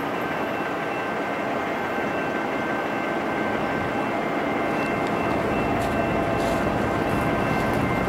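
Distant freight train approaching out of sight: a steady rumbling noise that slowly grows louder and fuller in the low end, with a few faint steady high tones over it.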